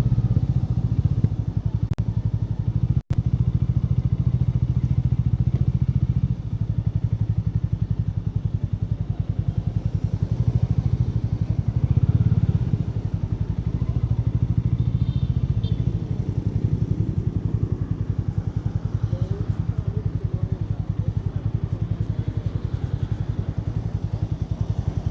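Hero Mavrick 440's single-cylinder engine running through its stock exhaust, a steady, even low pulse with a short swell about twelve seconds in. The sound cuts out for an instant about three seconds in.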